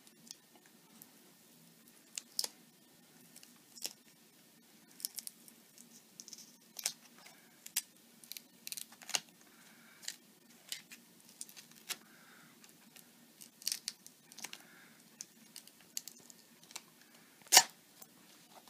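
Silver foil tape being peeled back slowly from a laptop screen's display connector: scattered small crinkles and tearing crackles, with one sharp click near the end.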